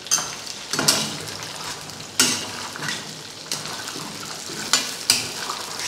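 Mutton pieces and whole tomatoes sizzling in hot oil in a metal karahi, with a metal spatula scraping and knocking against the pan about six times.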